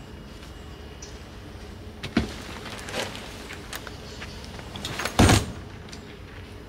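Fold-over roof top tent being opened by hand: a couple of knocks and clicks as the folded tent and its aluminium ladder are handled, then a heavy thump about five seconds in as the tent swings over and lands open.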